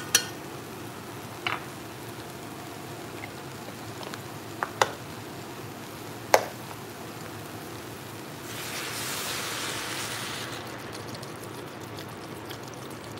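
Squash and carrots sizzling steadily in a pot. There are a few sharp clinks near the start and around five and six seconds in, and a louder hiss for a couple of seconds past the middle.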